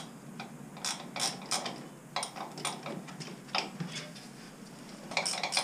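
Metal hand tools clinking and clanking as they are handled, in irregular separate clicks.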